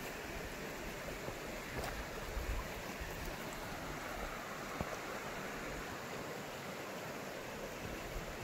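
Steady rushing of a creek running over rocks, with a few faint clicks.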